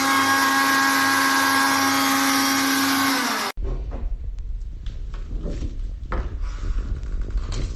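Suruchi Elantra 800-watt mixer grinder motor running at a steady high whine. It begins to slow and cuts off abruptly about three and a half seconds in. Scattered clicks and knocks over a low rumble follow.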